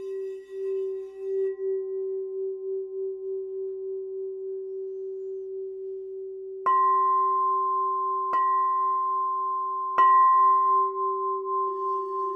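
Singing bowls: a low bowl rings steadily with a slow wavering beat, while a higher-pitched bowl is struck three times, about a second and a half apart, each strike ringing on over the low tone.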